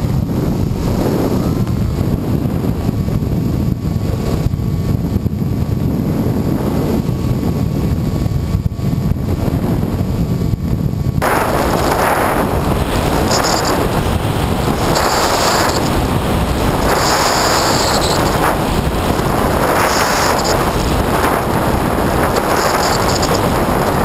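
Wind rushing over the onboard camera of a Skywalker FPV plane in flight, mixed with the steady drone of its electric motor and propeller. About halfway through, the sound turns abruptly harsher and hissier.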